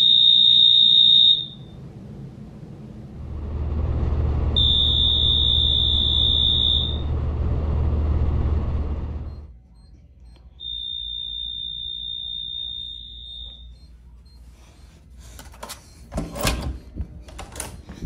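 Edwards Signal fire-alarm horn wired as a hotel-room doorbell, sounding a steady high-pitched electronic tone three times for about two seconds each, the third ring fainter. A low rumbling noise runs through the middle, and a few knocks and clicks come near the end.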